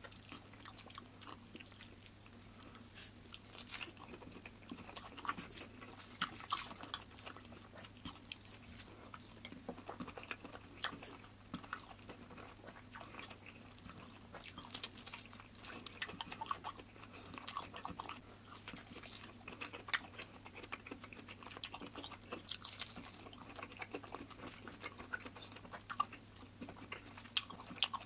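Close-miked eating sounds: chewing and wet mouth clicks of a person eating rice and mutton curry by hand, in many short irregular clicks over a steady low hum.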